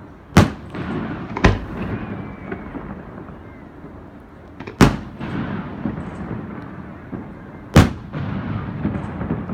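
Aerial firework shells bursting overhead: four sharp booms, about half a second in, at a second and a half, near five seconds and near eight seconds, each followed by a rolling echo.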